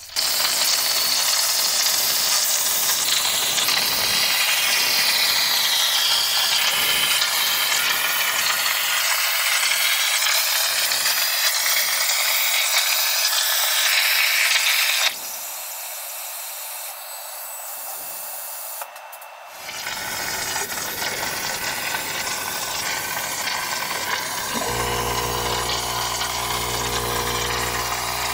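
CNC plasma cutter (Langmuir CrossFire Pro table) cutting steel sheet: a loud, steady hiss. The hiss drops sharply about fifteen seconds in and a quieter hiss follows, and a low steady hum joins about twenty-five seconds in.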